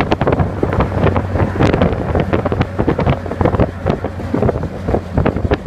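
Wind buffeting the microphone in irregular gusts from a moving car, with a steady low hum of engine and road noise beneath.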